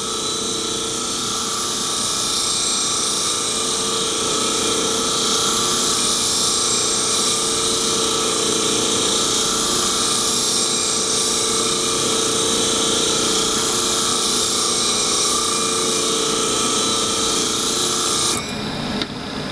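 Clipper blade sharpening machine running, with a steel A5 clipper blade being reground on it to take out rust pitting. It is a steady, unchanging whine with a high grinding hiss, and it stops abruptly near the end.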